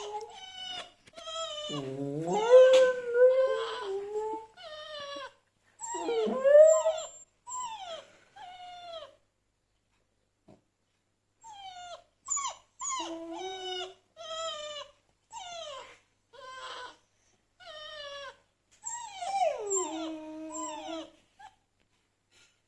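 Dog whining and whimpering in many short, high, gliding cries, answering a recording of a dog whining played from a phone. Longer howls come about two seconds in and again near the end, with a short pause around the middle.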